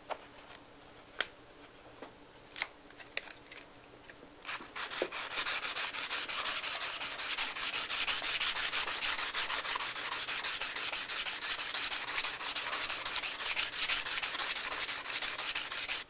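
A few light handling clicks, then from about four and a half seconds in, rapid back-and-forth dry hand sanding: 120-grit wet-and-dry paper on a cork sanding block rubbing down hard-cured epoxy putty on a steering wheel rim.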